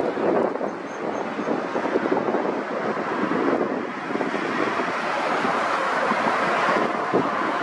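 Jet engine noise of a Boeing 777 passing low on final approach to land, a steady rushing noise, mixed with wind buffeting the microphone.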